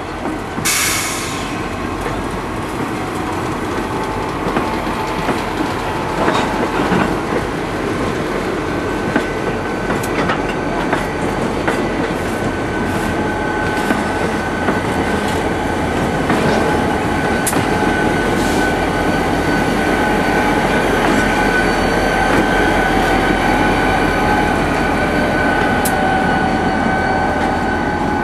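A slow-moving rail work train of tank cars and a track machine, powered by a GP40FH-2 diesel locomotive, rolling past close by, its wheels clicking over the rail joints. A steady high squeal comes in about halfway through and holds.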